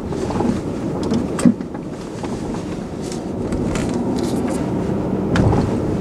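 Front air-suspension strut of a Tesla Model S heard through a microphone clamped at its lower end while driving: a steady rumble of road noise with a few sharp knocks, rattling terribly. This is the front-axle rattle the owner is tracing to the strut.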